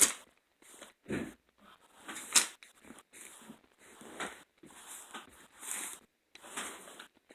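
Irregular rustling and crinkling as a fabric pillowcase and its plastic wrapping are handled and unfolded, in short bursts about a second apart.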